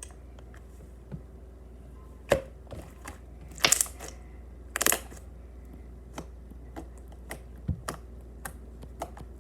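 Homemade slime, freshly mixed with extra glue, being worked by hand: scattered small wet clicks and pops, with louder squelches about two and a half, four and five seconds in.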